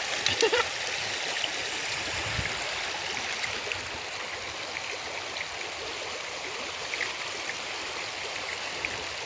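Steady rushing of the Sankosh River flowing past a pebble bank, with a few faint small ticks.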